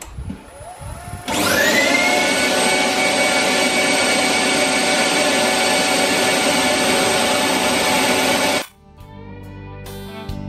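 Wood lathe starting up about a second in, its motor whine rising and settling to a steady pitch, then running steadily with a loud hiss. It cuts off abruptly near the end, and guitar music follows.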